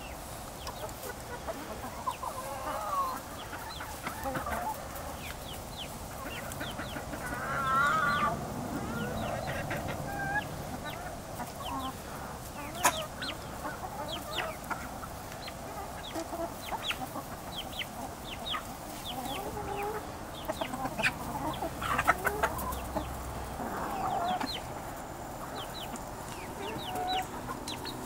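Backyard hens clucking and calling in short, wavering notes while they feed, with many short, sharp ticks from beaks pecking at the food bowl and the ground.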